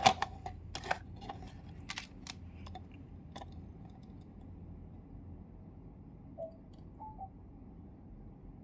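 Several light clicks and taps in the first few seconds, from a digital multimeter and its test probes being handled while a resistor is measured, then only a faint low hum.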